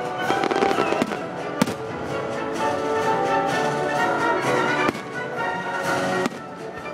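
Aerial fireworks shells bursting with several sharp bangs, over orchestral music with strings.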